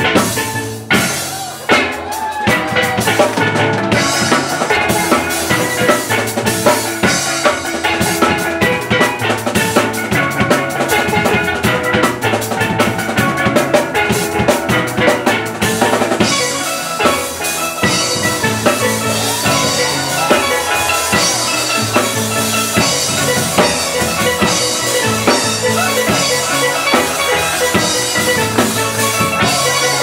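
Steel band playing: several steel pans carry the melody and chords over a drum kit keeping a steady beat, with a brief drop in the music about a second in.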